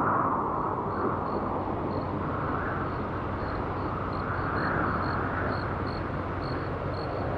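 Distant city traffic hum: a steady wash of noise that swells and eases every second or two, with faint short high chirps repeating irregularly above it.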